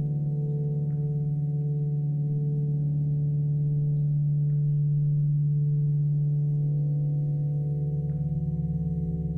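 Ambient drone music played live: several sustained low tones layered together, slowly pulsing against each other and swelling a little in the middle, with a few faint short high chirps.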